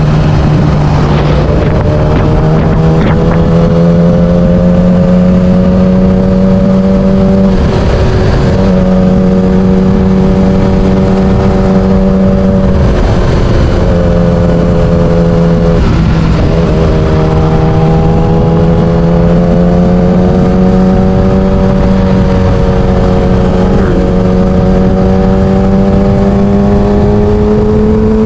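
Yamaha R6's 600cc inline-four engine running at steady revs under way, its pitch creeping slowly higher and dropping off briefly about four times before picking up again. Wind noise on the microphone runs under it.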